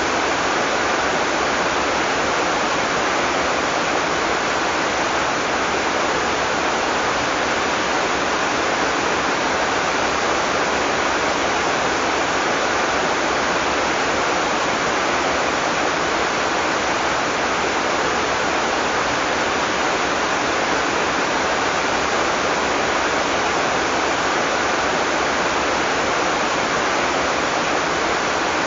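Heavy tropical rain falling steadily, an even rushing hiss with no thunder.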